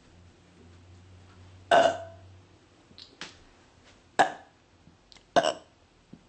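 A woman burping: three loud burps and a shorter, softer one between the first two. She is gassy from drinking a lot of soda.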